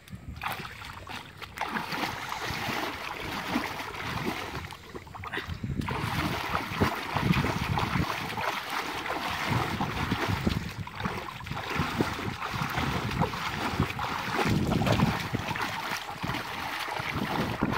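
Shallow muddy water splashing and sloshing as hands churn and grope through it, in irregular splashes that grow busier and louder about six seconds in.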